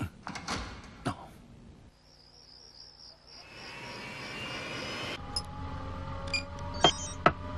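Anime sound effects: a few high-heeled footsteps clicking in the first second, then a rapid high chirping. From about halfway, a futuristic racing machine powers up: a hiss with rising whine tones, settling into a steady low hum with rising whines and a couple of sharp clicks near the end.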